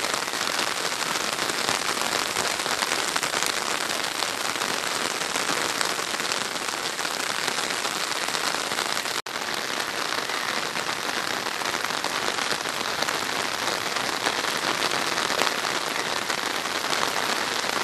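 Heavy rain falling steadily, a dense even hiss, which cuts out for an instant about nine seconds in.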